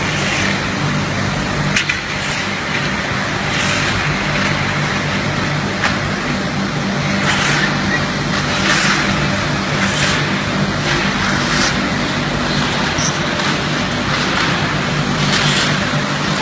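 Steady machinery din of an automatic aluminium powder-coating line, with a low motor hum and a couple of sharp clicks.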